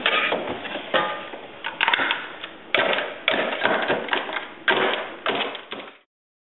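Ice being chipped out of a Jenn-Air freezer: a rapid, irregular run of sharp knocks and scrapes that cuts off suddenly near the end. The ice has built up because the freezer door won't close.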